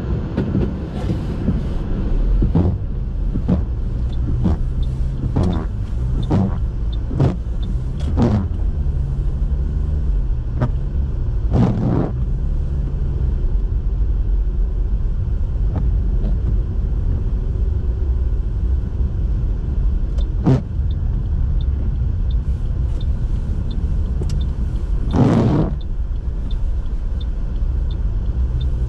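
A car driving on a snowy road: a steady, loud low rumble of engine and tyres, broken by irregular short knocks and thumps every few seconds, the strongest about twelve seconds in and near the end.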